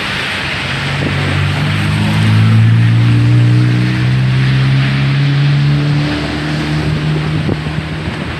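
A motor vehicle driving past on the road, its engine note swelling and then slowly falling, over a constant rush of hurricane wind and heavy surf.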